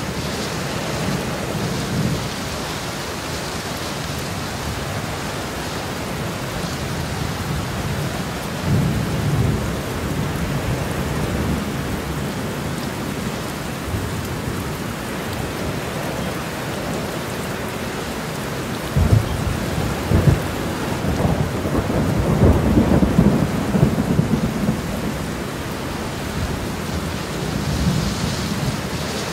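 Steady rain falling, with thunder rumbling low about nine seconds in and again, louder and longer, from about nineteen to twenty-five seconds.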